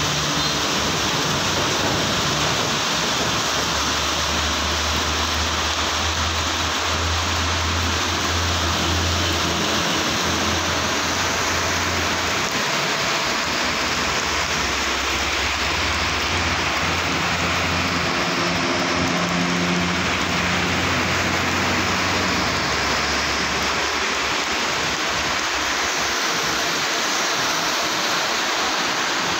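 Heavy rain pouring steadily onto a wet paved road. Under it, the low hum of passing trucks' engines and their tyres on the flooded road for much of the time, fading out about two-thirds of the way through.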